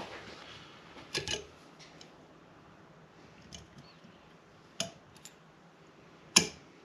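Slip-joint pliers working the legs of a steel cotter pin: a double knock about a second in, then a few scattered sharp clicks, the loudest near the end.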